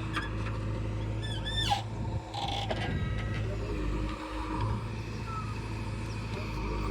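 Steady low engine hum of a heavy vehicle running, with a few short squeaky pitch glides about one and a half seconds in.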